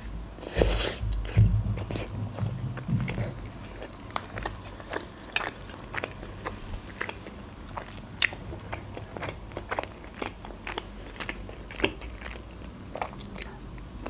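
A person chewing a mouthful of manti (steamed meat dumplings), heard as a run of short, sharp mouth clicks. A brief rustle and low thumps come in the first few seconds.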